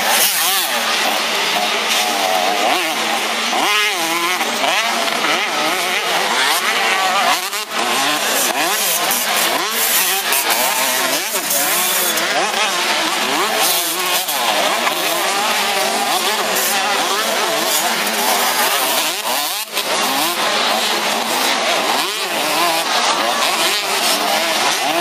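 Several 85 cc two-stroke motocross bikes racing, their engines revving up and dropping again and again as the riders shift and work the throttle. The high, rasping engine notes of more than one bike overlap.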